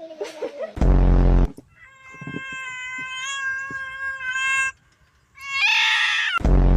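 A cat meowing: one long drawn-out meow held almost on one pitch for nearly three seconds, then a shorter high meow. Two loud, low, buzzy blasts come about a second in and near the end.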